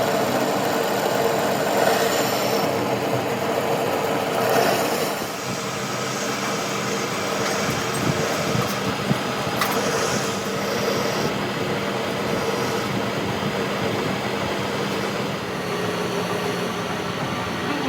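Workshop machinery running steadily: a constant motor hum under a broad, even noise.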